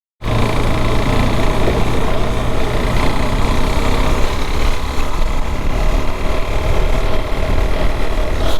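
KTM Duke 390's single-cylinder engine running steadily.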